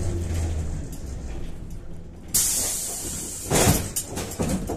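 Inside a moving Kyiv-12.03 trolleybus, a low hum fades away, then about two seconds in there is a sudden hiss of compressed air lasting about a second from the trolleybus's pneumatic system. Near the end come a few loud clunks and rattles of the body.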